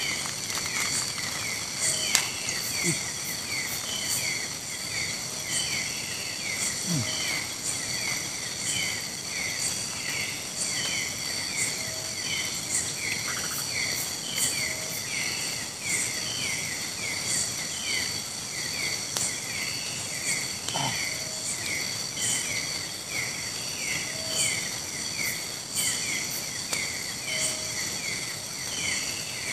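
Insect chorus of a Borneo rainforest: a steady high buzzing with a chirp repeating about two to three times a second, and a short lower call now and then.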